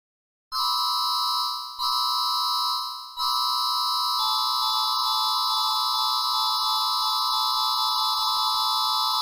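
Electronic warning siren sounding a steady chord of fixed pitches, without rise or fall. It gives two short blasts that fade out, then a continuous held tone from about three seconds in.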